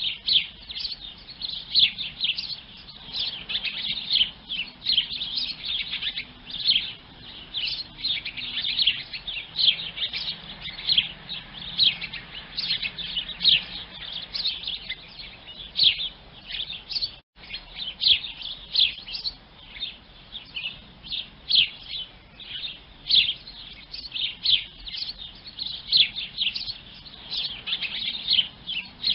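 Sparrows chirping continuously, a few short, bright chirps every second and overlapping at times, with the sound cutting out for an instant about 17 seconds in.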